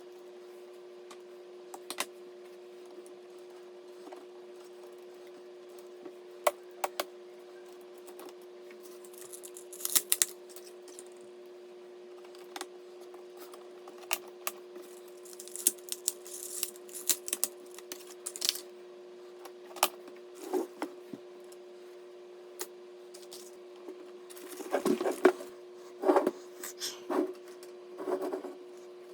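Computer parts being handled during assembly: scattered sharp clicks, small metallic taps and short rustles, with a busier run of clatter near the end, over a steady low hum.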